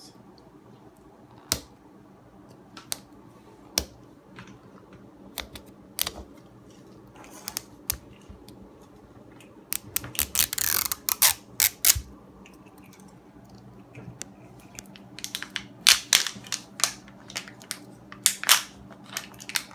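Plastic toy packaging being handled and opened: scattered sharp clicks and taps, with a longer crinkling rustle about halfway through and quicker clicking near the end.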